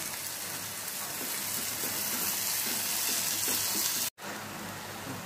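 Onion and chopped tomato sizzling in hot oil in a nonstick kadhai, a wooden spatula stirring through them. The steady frying hiss breaks off for an instant a little after four seconds.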